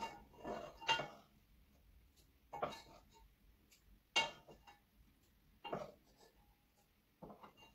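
Wooden spoons knocking and scraping against a cooking pot and plate while cooked ramen noodles are lifted out and served, in about five short clatters a second or two apart.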